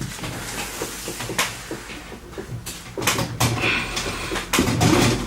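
Knocks, clicks and rattles of a PC case and its parts being handled, several of them close together in the second half.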